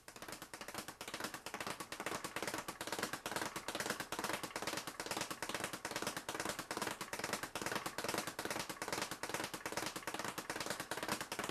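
Leather speed bag being punched and rebounding off its wooden board in a fast, steady rattle of many knocks a second, worked in the rhythm-punch pattern of two fast punches followed by two bounces.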